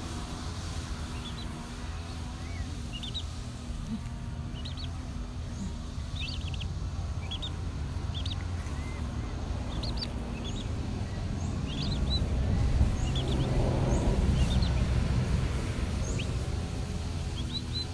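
Downy chicks peeping: many short, high, rising chirps scattered through, over a low rumble that grows louder past the middle.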